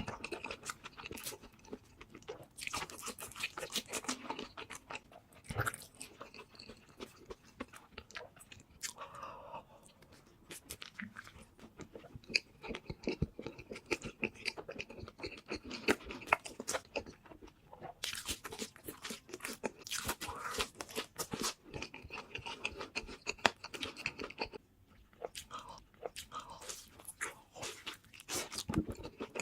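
Close-miked eating: a person biting into and chewing a burger, with many irregular crunchy, wet mouth clicks.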